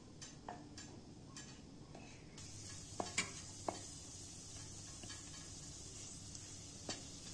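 A wooden spoon stirring and scraping onions and walnuts frying in a stainless steel pot, with light knocks of the spoon against the pan. From about two seconds in a steady sizzle of the frying is heard, and the loudest spoon knocks come about three seconds in.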